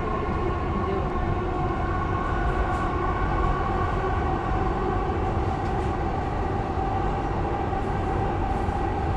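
Running noise heard inside a moving metro train car: a steady rumble with a high whining tone that drifts slightly lower partway through.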